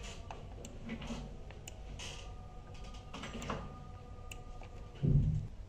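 Scattered faint clicks and light knocks over a low steady hum, with one louder dull thump about five seconds in.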